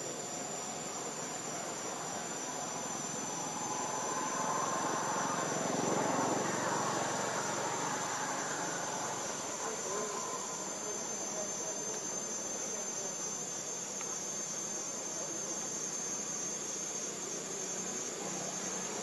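Steady high-pitched insect drone. A broad, distant rumble swells and fades in the middle.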